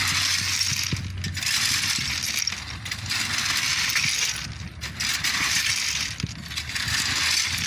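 Gravel railway ballast being scraped and shoved in among the concrete sleepers with long-handled steel hand tools: repeated gritty scraping strokes, each about a second long, with clinks of steel on stone.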